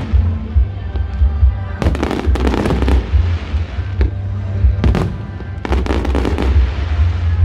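Aerial fireworks going off in several rapid volleys of bangs and crackles. Loud music with a heavy, steady bass plays underneath.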